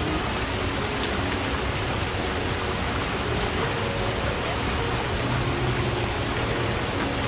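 Forest stream rushing in a steady, even wash of water noise. A low steady hum rises under the water about five seconds in.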